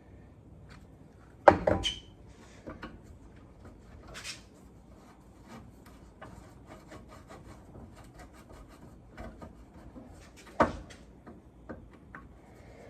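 Hand-tool work on a Dodge M37 windshield frame: two sharp clanks, a second and a half in and near the end, with light clicks and rubbing between them.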